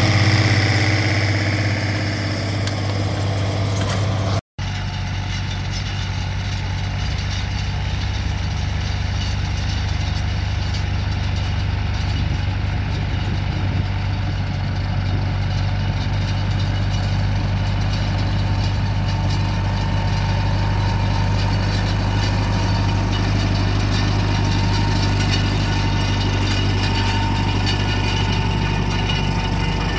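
Diesel farm tractor engines running steadily under working load while pulling field implements. The sound cuts out for an instant about four and a half seconds in, then another tractor's engine carries on at a steady pitch.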